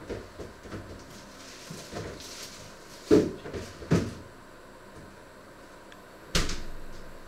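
Kitchen handling noise: a few knocks and thuds, strongest about three and four seconds in, then a sharper bang a little after six seconds that fades over about a second.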